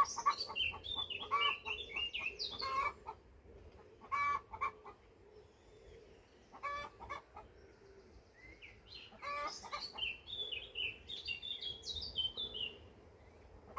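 A bird giving bursts of short, repeated clucking calls, much like a chicken. Twice there is a run of higher chirping notes that step down in pitch.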